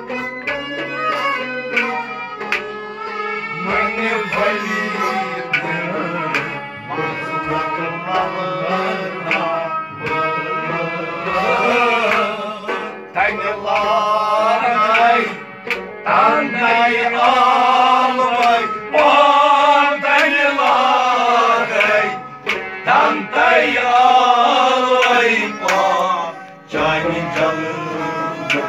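Live folk music: a tumbaknari clay-pot drum keeps the beat under sustained harmonium chords, and a singing voice comes in about a third of the way through and grows louder.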